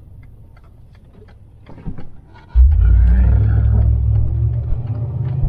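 Toyota mini motorhome's engine, heard from inside the cab, idling quietly with a few faint clicks, then pulling away from a stop about two and a half seconds in as a sudden loud, low rumble under acceleration.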